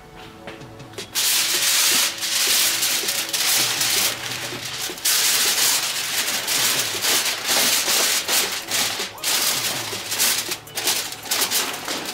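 Aluminum foil crinkling as a sheet is pulled out and pressed down over a foil pan, starting about a second in.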